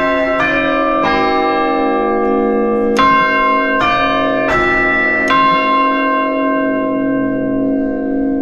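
Church tower bells heard close up in the bell chamber. They strike a run of different notes about three-quarters of a second apart, with a pause of nearly two seconds after the second strike. After the last strike, a little past five seconds in, the bells' hum rings on.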